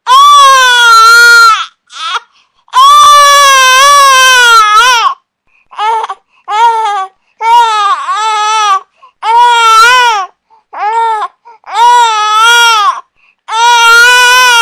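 Infant crying: a run of loud wails, some about two seconds long and others short, broken by brief gaps for breath, each wail wavering up and down in pitch.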